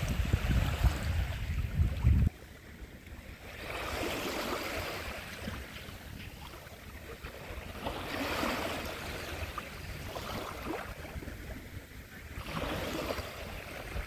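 Small waves lapping on a pebble beach, each swash swelling and fading about every four seconds. A low rumble of wind on the microphone cuts off suddenly about two seconds in.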